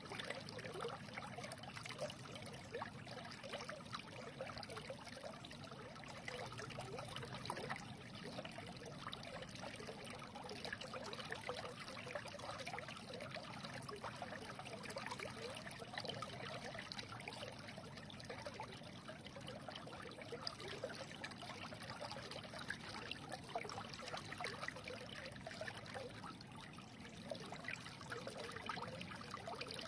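A shallow stream flowing and babbling steadily over stones, a continuous trickling and gurgling of water.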